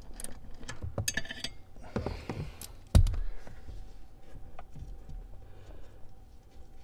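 Socket ratchet clicking in short runs and knocking against metal while 10 mm nuts are loosened, with one loud thump about three seconds in.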